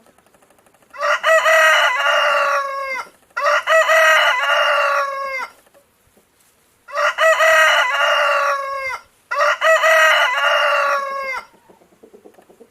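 Rooster crowing four times, in two pairs of calls about two seconds each, each crow trailing off with a falling end.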